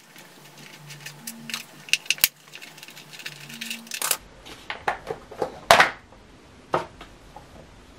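Light clicks, taps and knocks of plastic and small metal parts as a chainsaw's top air-filter cover is unscrewed and lifted off, with one louder knock about two-thirds of the way through.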